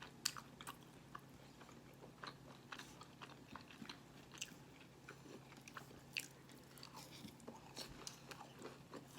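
Faint eating sounds: scattered small clicks and crunches of chewing, over a low steady hum.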